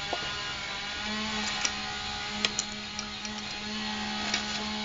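A steady machine hum throughout, with a few light, sharp clicks and taps as small plastic kit parts and a utility knife are handled.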